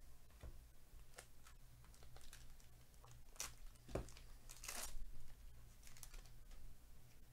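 Trading card pack wrapper being torn open and crinkled by hand, an irregular run of crackles and short tearing rasps, loudest about four to five seconds in, followed by cards being slid out.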